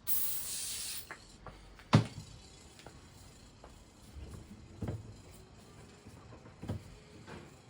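A short hiss of an aerosol cleaner spray, about a second long, being sprayed onto a bicycle hub to clean it. It is followed about two seconds in by one sharp knock and then a few lighter knocks and handling noises.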